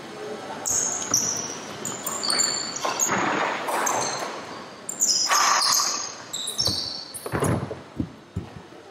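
A badminton rally on a wooden indoor court: sneakers squeak sharply again and again on the floor between sharp racket strikes on the shuttlecock, all ringing in a large hall. Near the end come several heavy thuds as a player dives and lands on the floor.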